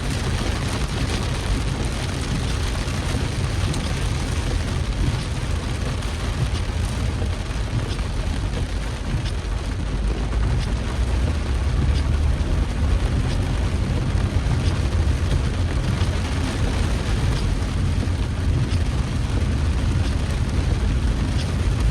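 Heavy rain falling: a steady rushing hiss with a deep rumble underneath and faint scattered ticks of drops. The rumble grows a little louder about halfway through.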